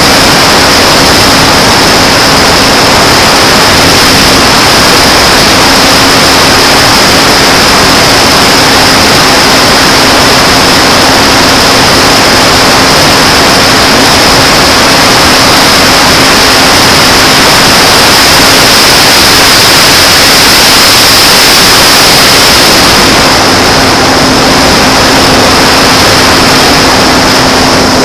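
Electric motor and APC 5.5x4 propeller of a J-Power Sky Surfer RC glider running at a steady pitch, recorded by a camera on the plane itself under heavy wind rush over the microphone. The rushing hiss eases slightly in the last few seconds while the motor tone carries on.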